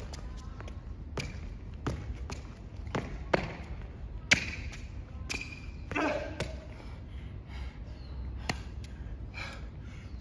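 Footbag freestyle: soft irregular taps of a footbag against shoes, mixed with quick shoe scuffs and footsteps on a hard court surface, over a steady low background rumble.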